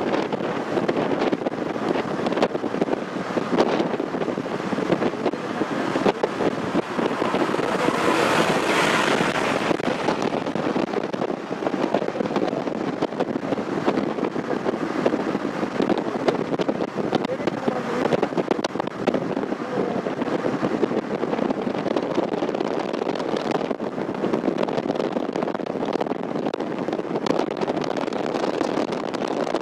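Car travelling at highway speed, heard from inside the cabin: steady road and wind noise, swelling louder for a couple of seconds about eight seconds in.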